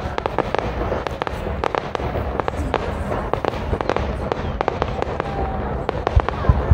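Fireworks display: a dense, rapid crackling and popping of firework bursts, with a few louder bangs near the end.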